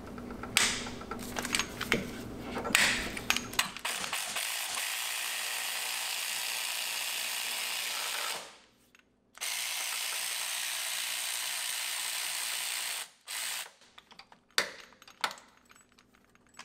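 Cordless electric ratchet backing out a starter mounting bolt: a few clicks, then two long, steady runs of the motor a second apart, a short burst, and a few clicks near the end.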